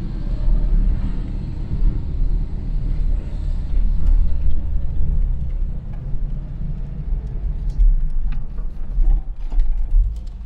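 A 1982 Renault 9 being driven, its engine and road noise making a steady low rumble that swells and eases, with a few sharp knocks in the last couple of seconds.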